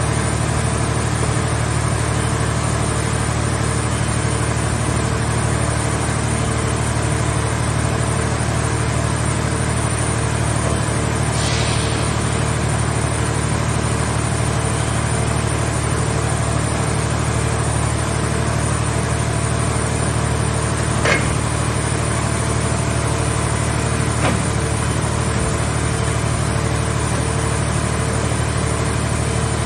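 A scrap car-shell baler's engine or hydraulic power unit running steadily, with a brief hiss about halfway and two short sharp knocks a few seconds apart near the end.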